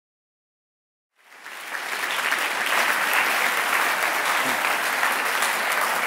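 Silence for about a second, then audience applause fades in and holds steady.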